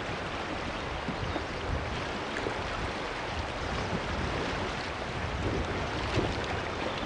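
Steady rush of riffled river water around a drifting raft, mixed with wind.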